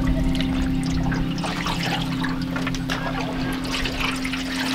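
Small waves lapping and splashing against an aluminium canoe hull in irregular little slaps, over a steady ambient music drone.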